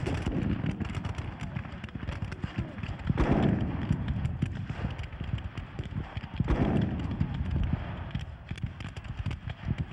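Re-enacted Civil War battle: a steady crackle of scattered rifle-musket fire, with two heavier booms, one about three seconds in and another about six and a half seconds in, the second from a field cannon firing.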